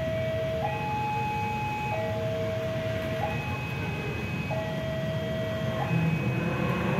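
Level-crossing warning alarm sounding a two-tone electronic signal, switching between a higher and a lower tone about every second and a quarter, over the steady low rumble of a CC 201 diesel-electric locomotive's engine. The rumble grows louder near the end.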